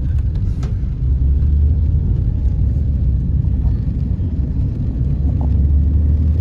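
A vehicle driving along a road, with a steady low rumble of engine and road noise.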